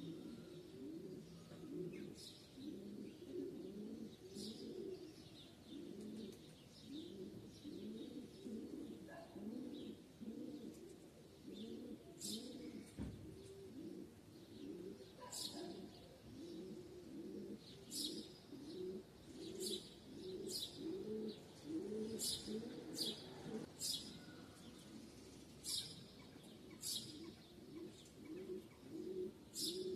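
Pigeons cooing over and over in a low, steady rhythm, with small birds chirping in short high calls that come more often in the second half.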